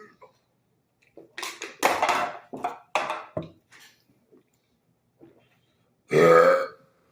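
Men burping after chugging carbonated soda: a quick run of several burps starting about a second in, then one loud, longer burp about six seconds in.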